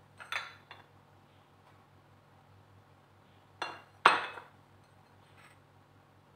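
A glass bowl and ceramic plates clinking on a countertop as they are handled: a short clatter of light knocks near the start, then two sharper clinks about three and a half and four seconds in, the second the loudest. A faint low hum runs underneath.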